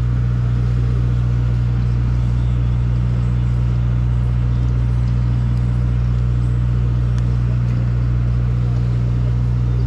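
Sportfishing boat's engine running steadily, a deep, even drone that does not change.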